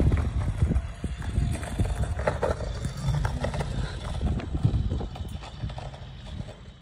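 A gymnast's quick running footsteps and leap landings on concrete, a string of irregular thuds that fades near the end as she moves away. Wind rumbles on the microphone underneath.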